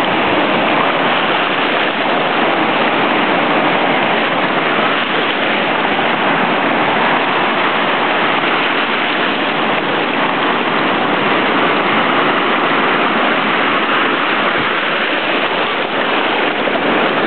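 Surf breaking on a sandy beach, heard as a steady, continuous wash of waves with no single break standing out.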